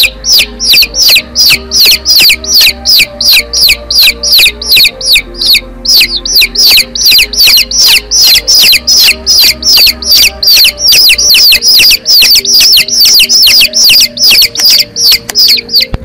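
Domestic chicks peeping: a continuous, loud run of short falling peeps, about three or four a second, over soft background music.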